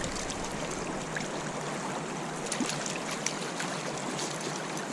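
Spring creek water flowing with a steady rush, with a few faint sharp ticks about halfway through.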